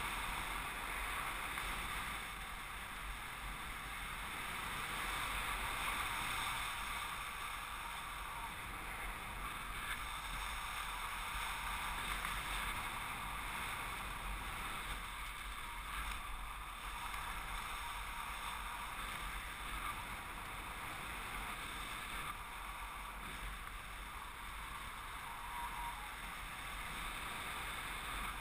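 Steady rush of airflow past the camera's microphone during paraglider flight, with slight swells in loudness.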